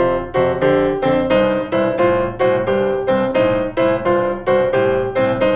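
Piano playing a boogie-woogie blues scale riff in the right hand over a looping left-hand bass line, both hands together on a steady beat, moving through the chords of a 12-bar blues progression.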